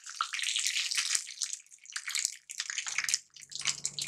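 Peanuts, mustard seeds and cumin seeds frying in hot oil in a steel kadhai, sizzling with many small crackles as they are stirred with a metal slotted spoon.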